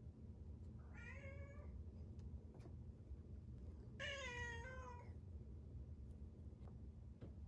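A domestic cat meowing twice: a short meow about a second in, then a longer, louder meow about four seconds in. The cat is asking to be fed.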